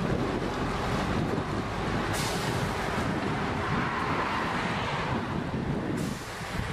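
Steady rumble and hiss of road traffic, with a sudden change in the sound about two seconds in and again near the end.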